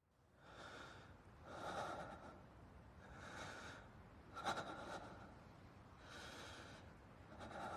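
A person breathing heavily and raggedly, six breaths in and out about a second apart, with a short click about halfway through.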